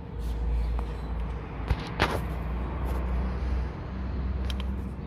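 Ford Expedition engine idling steadily, with a brief hiss about two seconds in and a few sharp clicks near the end.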